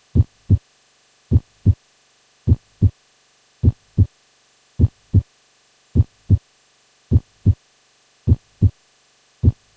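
Normal heart sounds, S1 and S2, beating as a steady lub-dub: about nine beats, each a pair of short low thuds about a third of a second apart, roughly one beat a second. S1 (lub) is the mitral and tricuspid valves closing; S2 (dub) is the aortic and pulmonary valves closing.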